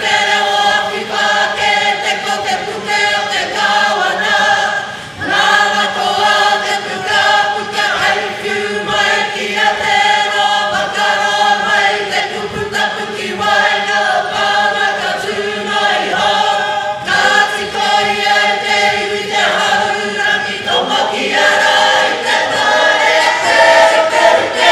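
Kapa haka group of men and women singing a waiata together in full voice, with a brief break about five seconds in.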